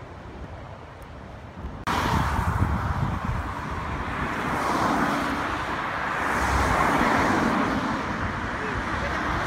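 Road traffic on a multi-lane highway: a steady noise of tyres and engines that swells as vehicles pass. It starts abruptly about two seconds in, after a short stretch of quieter, wind-like outdoor noise.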